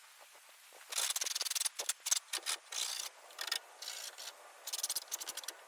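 A hand file scraping along the freshly cut sheet-metal edge of a van door's window opening, in a series of uneven strokes starting about a second in, smoothing the cut edge.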